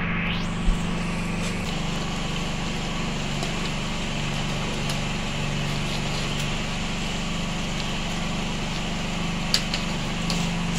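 A steady machine-like hum with a low drone, and a few light clicks of a metal spoon against the pot as it stirs the soup, about a second in and twice near the end.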